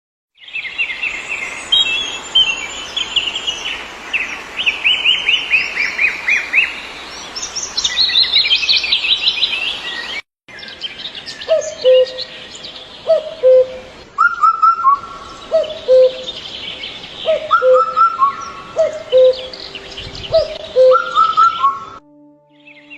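Songbirds chirping and trilling over the steady rush of stream water. After about ten seconds the sound cuts to a different recording: a low two-note bird call repeats roughly every second and a half among higher chirps. Steady held music tones enter near the end.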